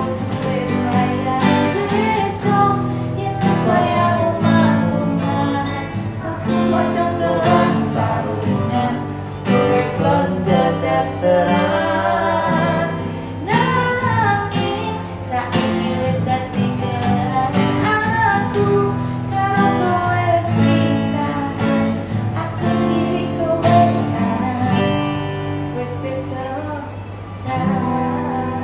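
A woman singing a slow song over strummed acoustic guitar accompaniment.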